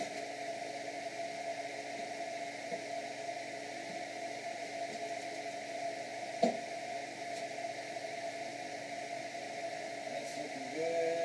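Benchtop drill press running steadily while its bit is fed down into a square steel tube, a steady motor hum with one sharp knock about six and a half seconds in and a short rising whine near the end.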